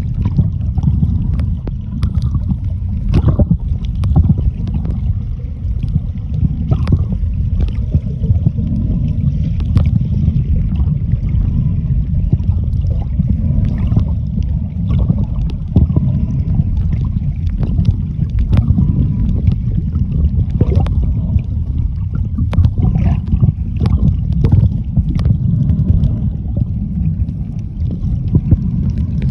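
Muffled underwater rumble of water moving against a submerged camera, with scattered sharp clicks and crackles throughout.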